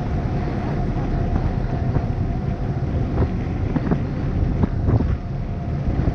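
Wind buffeting the microphone on a moving tour boat, over the steady running of the boat's engine and the rush of churned water alongside the hull.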